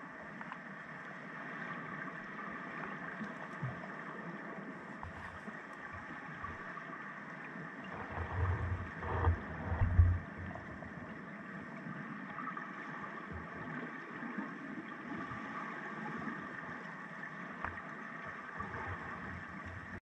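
Underwater noise of storm-churned seawater: a steady rushing hiss, with a few loud, deep thumps of surging water about eight to ten seconds in.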